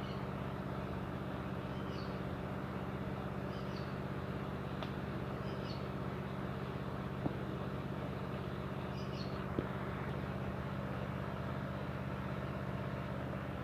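Steady low mechanical hum, even and unchanging, with a few faint high bird chirps and two sharp clicks about seven and nine and a half seconds in.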